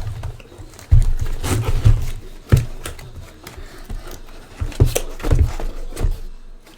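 Cardboard boxes being handled and set down: irregular knocks, low thumps and scrapes, about a dozen in all.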